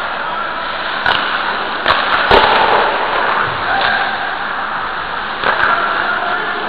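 Ice hockey game sounds picked up by a camera taped to the goalie's helmet: a steady rush of rink noise with several sharp cracks of stick, puck or boards. The loudest crack comes about two and a half seconds in.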